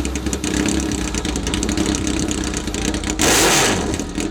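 Kawasaki Z1000 inline-four motorcycle engine idling through aftermarket slip-on exhausts, then revved sharply about three seconds in, the pitch falling back toward idle.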